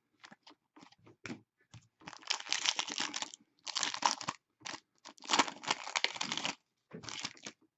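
A foil trading-card pack wrapper being torn open and crinkled by hand: a few small clicks, then four rustling, crackling stretches, the longest about a second and a half.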